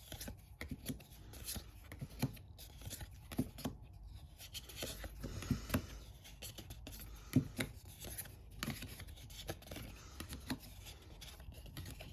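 Trading cards handled and slid past one another, one by one: faint scattered clicks and rustles of card stock.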